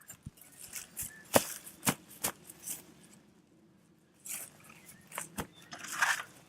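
A few sharp knocks or snaps mixed with rustling, the loudest knock about a second and a half in, then a quieter spell before the rustling picks up again.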